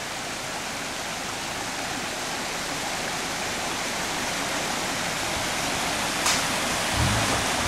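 Small forest stream rushing over rocks: a steady, even rushing noise, with a single sharp click about six seconds in.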